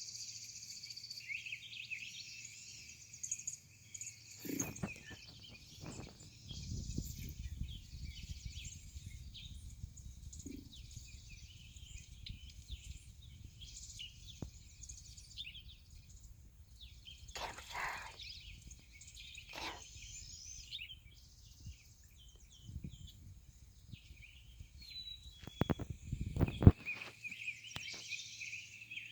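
Small birds chirping and twittering continuously, with a few sharp knocks, the loudest near the end, and a low rumble for several seconds early on.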